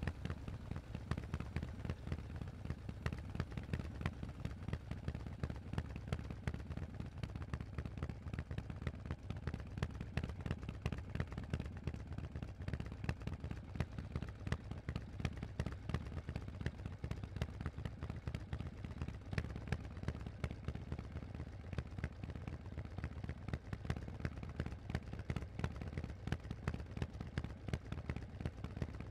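Harley-Davidson Forty-Eight's 1200 cc air-cooled V-twin running steadily under way through a Vance & Hines exhaust: a rapid, even train of deep exhaust pulses.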